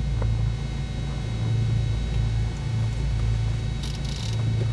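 The Cessna 310's twin piston engines running at low power while taxiing: a steady low drone in the cabin that wavers slightly. A short hiss cuts in about four seconds in.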